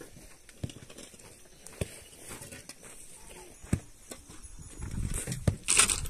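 Scattered light knocks and scuffs on stony dirt, with a few sharper strikes and a short rushing noise near the end.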